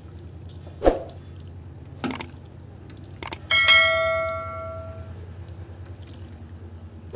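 Clicks, then a bright bell ding about three and a half seconds in that rings and fades over about a second and a half: the sound effect of a YouTube subscribe-and-notification-bell animation. A steady low hum runs underneath.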